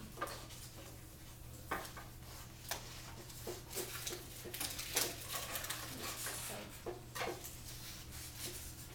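Classroom handling noise: scattered light taps, clicks and knocks, some a little louder than others, over a steady low hum.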